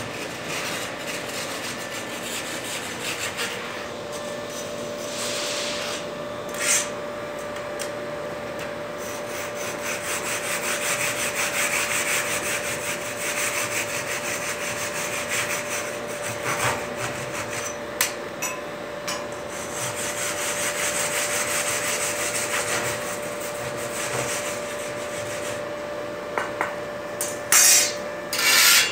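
Steel bar rasping and scraping against the mould and rail head of a fresh thermite rail weld, in uneven strokes that swell and fade. Near the end a shovel blade scrapes loudly across the mould a few times.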